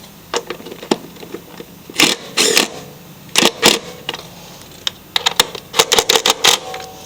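Sharp metallic clicks and rattles of hand tools driving in the belt-cover bolts on an aluminum mower deck, in short clusters with a fast run of clicks near the end.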